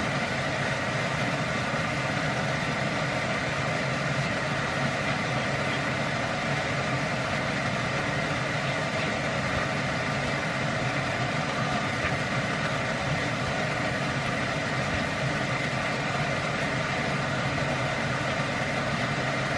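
A motor running steadily: an even hum with a hiss over it.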